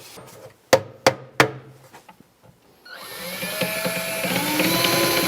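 Three sharp knocks about a second in, then a power drill-driver starts about three seconds in, its whine rising and then holding steady as it drives a screw to secure the cabinet's back panel.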